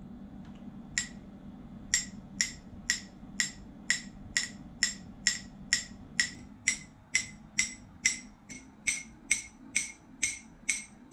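A metal spoon tapping the side of a ceramic mug of freshly stirred instant coffee, about two short ringing clinks a second, starting about a second in. The pitch of the clinks rises as the air bubbles stirred into the coffee escape (the hot chocolate effect).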